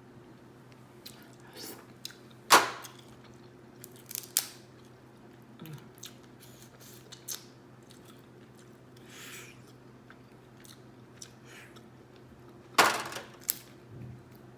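A person eating a crab-leg seafood boil close to the microphone: chewing, with scattered sharp cracks and snaps, the loudest about two and a half seconds in and again near the end.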